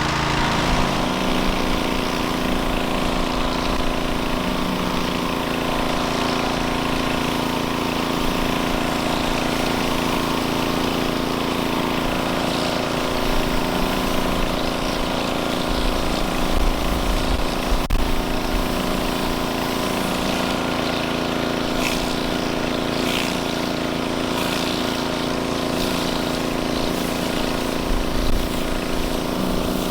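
Gas pressure washer's small engine running steadily under load, driving the surface cleaner.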